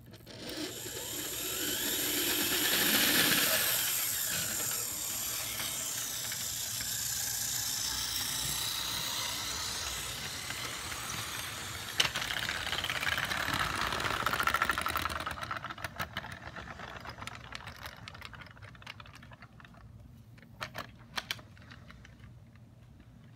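HO scale model train running close by: the small electric motor whines and the wheels rattle on the track, swelling twice as the train passes. After a sharp click it fades to faint scattered clicks.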